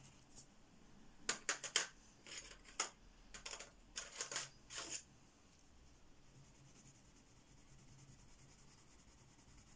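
Wooden coloured pencils clicking and tapping against each other as one is put back in the set and another is picked out: a quick run of short clicks over a few seconds, then only faint noise.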